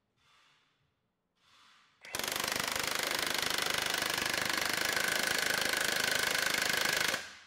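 Milwaukee 1-inch D-handle cordless impact wrench hammering at full power against a bolt on a torque tester. The loud, rapid, even hammering starts suddenly about two seconds in, runs about five seconds and cuts off abruptly.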